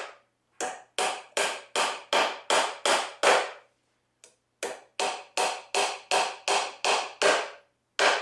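Hammer driving nails into white pine boards: a steady run of sharp strikes, about three a second. The strikes pause briefly a little before halfway, then start again in a second run.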